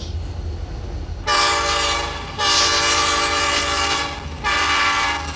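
Santa Fe diesel locomotive's air horn sounding three blasts, a chord of several steady pitches. A short blast starts about a second in, a longer one follows, and another short one comes near the end.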